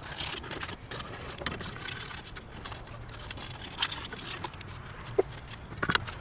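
A scraper worked in short, irregular strokes over a plastic trim frame, taking off paint softened by paint stripper: a run of scrapes and small clicks.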